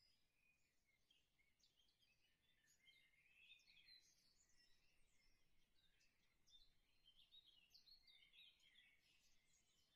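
Very faint scratching of a 0.5 mm mechanical pencil's lead on paper, in short irregular strokes.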